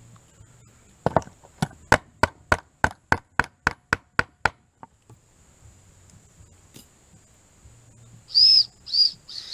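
A run of about a dozen sharp metallic clicks, evenly spaced at about three a second, from hand work on the Jeep's exhaust. Near the end come three short, high, arching chirps, like a bird's call.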